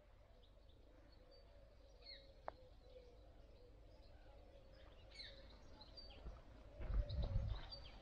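Faint, scattered bird chirps in woodland over a faint steady hum. Near the end come a run of loud, low thumps.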